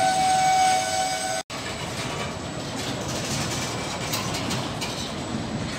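Freight train of empty car-carrier wagons rolling past, a steady rumble with wheel clatter. For about the first second and a half a high steady tone with overtones sounds over it, then the sound cuts off abruptly and the rumble carries on.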